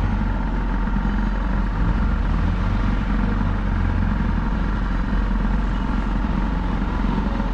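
A shikara tour boat's engine running steadily while the boat moves along the canal, heard from on board as an even, unchanging hum.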